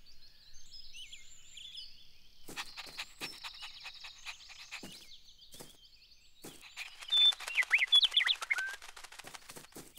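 Small birds chirping, faint at first, then a louder run of quick chirps and gliding notes about seven seconds in.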